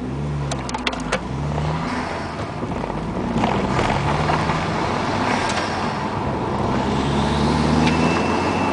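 Turbocharged car engine heard from inside the cabin, running under acceleration, its sound building steadily louder. A few sharp clicks come about a second in, and a thin steady whistle starts near the end as the throttle goes wide open.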